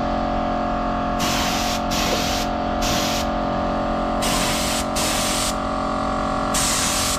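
Air spray gun hissing in repeated short bursts as primer is sprayed onto a motorcycle alloy wheel, over a steady mechanical hum.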